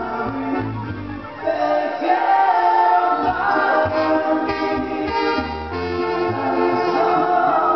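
A live band playing through a PA system: a singer's voice over guitar, keyboard and percussion, with a brass-like melody. The music swells louder about a second and a half in.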